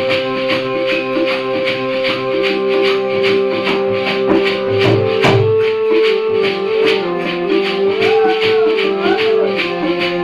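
Indian folk music: a dholak drum played by hand in a quick, steady rhythm with jingling percussion over sustained melody notes.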